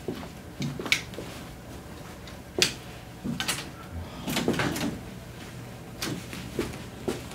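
Scattered clicks and knocks of things being handled, as when packing up and shutting drawers or cupboards: the sharpest knock comes about two and a half seconds in, with a spell of rustling around four and a half seconds.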